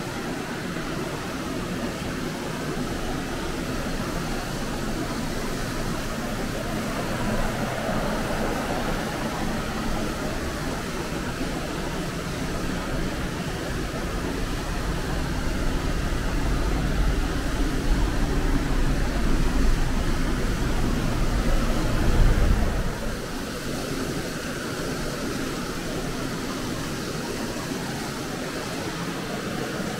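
Steady rushing of a shallow mountain stream flowing over rocks. A low rumble builds through the middle and stops abruptly about two-thirds of the way through.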